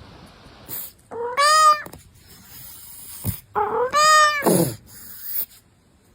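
A cat meowing twice, two long drawn-out meows that rise and then fall in pitch, the second sliding down low at its end.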